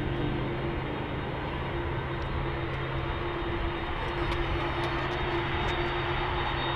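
Airbus A300-600ST Beluga's two General Electric CF6-80C2 turbofans running at low taxi thrust as the aircraft turns. The jet noise holds steady, with a constant low tone under it.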